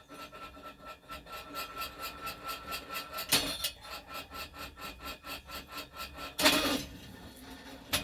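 Homemade wire stripper driven by an old treadmill's motor, running with a steady whine and a rhythmic scraping about five or six times a second. Two louder rasping bursts cut in twice.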